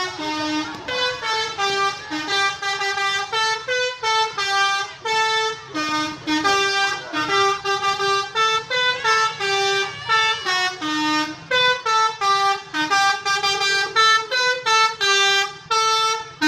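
Bus telolet horn playing a melody: short held horn notes stepping up and down in pitch, two or three a second, without a break.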